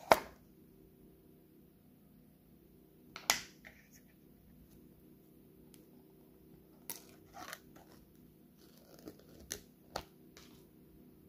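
Plastic screw lid of a glass jar being twisted open by hand: a sharp crack as it breaks free, another about three seconds in, then a handful of smaller clicks and crinkling as the open jar is handled.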